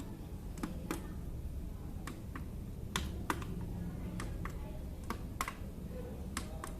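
Small plastic buttons on a handheld remote control clicking as they are pressed: about a dozen sharp, short clicks at irregular intervals, over a low steady hum.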